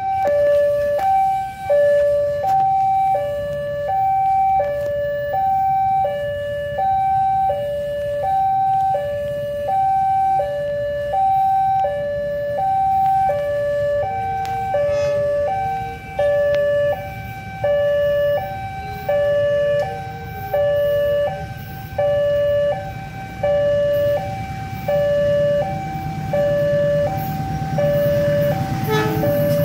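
Railroad level-crossing warning alarm: an electronic two-tone hi-lo sounding steadily, about half a second on each tone. About halfway through, a second, fainter alarm on lower tones joins in. Near the end a low rumble grows as the train approaches the crossing.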